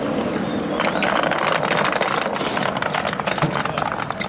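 A 5-inch-gauge model BR 50 steam locomotive and tender being pushed by hand along the track, its wheels and running gear rattling in a dense run of rapid clicks that grows louder about a second in.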